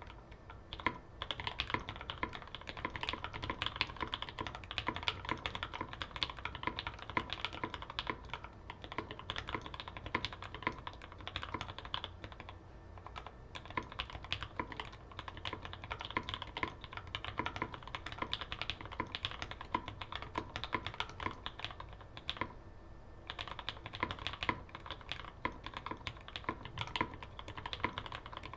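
Continuous fast typing on a custom mechanical keyboard with lubed Gateron Black Ink linear switches on a carbon fiber plate, under GMK keycaps. The keystrokes start about a second in and run as a dense stream of clacks, broken by two short pauses.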